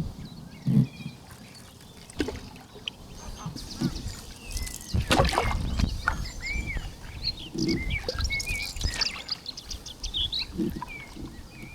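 Small birds chirping and calling, many short high notes, busiest in the second half. Underneath, the low swish and splash of a canoe paddle stroke every two to three seconds.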